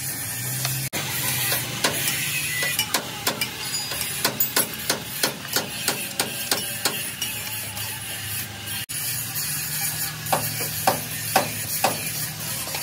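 Repeated metal-on-metal hammer strikes on a truck leaf spring's eye, about two to three a second, as its worn bushing is being changed.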